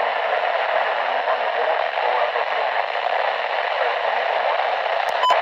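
Radio receiving a weak weather broadcast: steady static hiss with a faint voice buried under it. A sharp click with a short beep comes about five seconds in.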